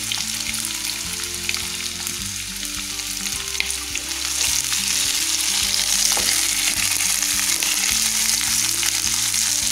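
Boiled elephant foot yam cubes and green chillies sizzling in hot oil in a nonstick kadai, with a spatula knocking and scraping against the pan as they are stirred. The sizzle grows louder about halfway through, once the stirring starts.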